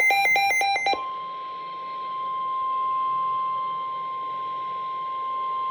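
Weather radio emergency alert: the tail of a rapid warbling digital data burst in the first second, then the National Weather Service's single steady 1050 Hz warning alarm tone, which signals that a warning message follows.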